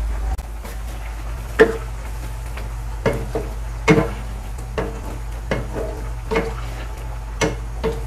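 Wooden spatula stirring vegetable soup in a wok, knocking against the pan about once a second, over a low steady hum.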